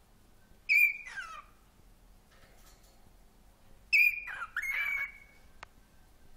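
Cockatiel calling in two loud bursts, about a second in and again about four seconds in: shrill whistled notes that slide down in pitch, the second burst longer and more varied.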